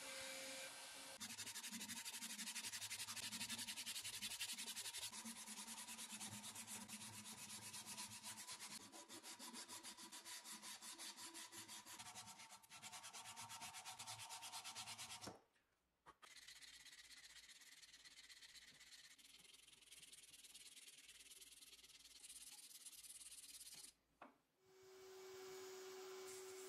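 Sandpaper rubbed by hand on the parts of an antique screwdriver, in quick, even back-and-forth strokes, in two stretches separated by a short break. About two seconds before the end it changes to the steady hiss and hum of a bead-blast cabinet running.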